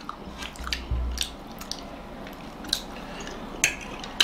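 Close-miked chewing of soft egg momo dumplings, with scattered light clicks of a fork on a plate and a low bump about a second in.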